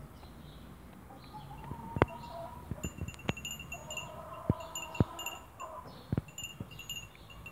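A lamb biting and chewing broccoli plant stems, with sharp crunching snaps every second or so, the loudest about two and five seconds in. Behind it, short high ringing notes repeat in quick groups.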